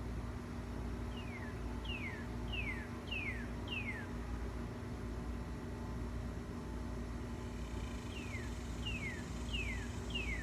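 A songbird calling in two runs of about five quick, clear, downward-slurred whistles, one run about a second in and another near the end, over a steady low background rumble.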